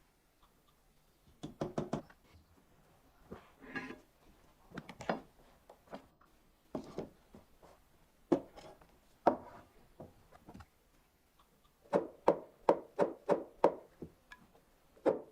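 A series of sharp knocks coming in irregular clusters, with a quicker run of about a dozen near the end.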